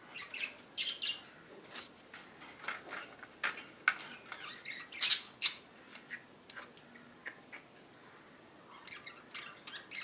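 Cockatiels and budgies giving a string of short squawks and chirps, the loudest cluster about five seconds in.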